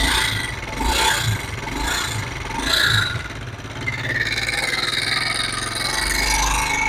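Honda CD70's single-cylinder four-stroke engine running rough, with uneven mechanical knocking and rattling. The mechanic traces the noise to oil starvation after the timing chain and the oil pump gear failed, leaving the engine internals damaged.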